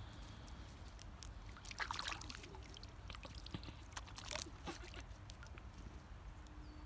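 A kelpie puppy's paws splashing and sloshing in shallow pond water, fairly quiet, with a couple of louder splashes about two seconds in and again past four seconds.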